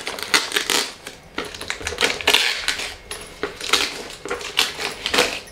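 Cardboard parcel being cut open with a kitchen knife and its tape and wrapping torn: a run of irregular scratchy rips and crinkles.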